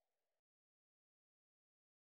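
Silence: the soundtrack is empty.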